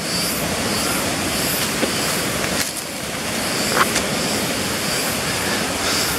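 Steady rush of fast-flowing water from a stream or waterfall, an even, unbroken noise.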